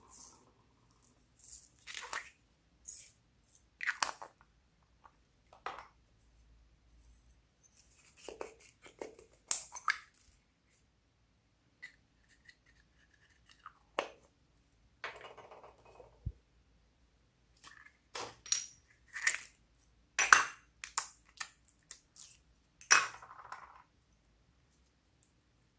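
Slime being squished and kneaded by hand: irregular sticky crackles and squelches, a short burst every second or so, with brief pauses.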